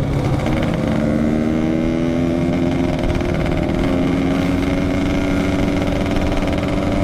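Yamaha RX-King two-stroke motorcycle engine running under way, its note climbing over the first few seconds and then holding steady, over a low wind rumble on the microphone.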